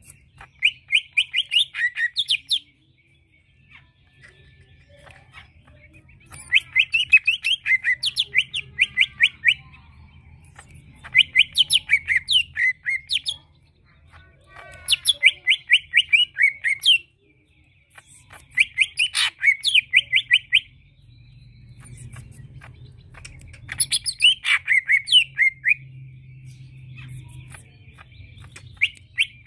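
Male greater green leafbird (cucak ijo) singing: about six loud bursts of quick, rapidly repeated chirping notes, each two to three seconds long, with pauses of a few seconds between them.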